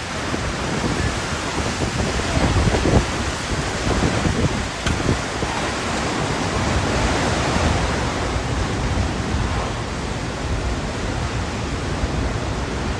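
Hurricane wind and rain: a steady rushing noise with an uneven low rumble.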